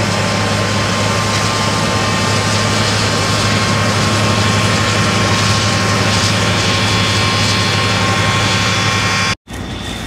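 John Deere combine harvester running while harvesting: a steady drone of engine and threshing machinery with a constant low hum. It cuts off abruptly just before the end.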